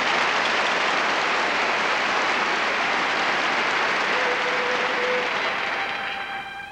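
A theatre audience applauding, fading away near the end as the orchestra's violins come back in.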